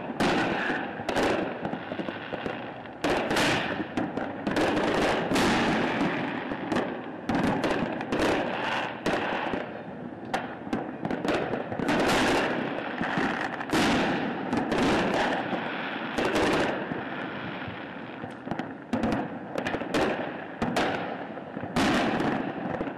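Fireworks going off without a break: a continuous crackle with loud bangs about every second or two, from aerial shells launched from the ground and bursting overhead.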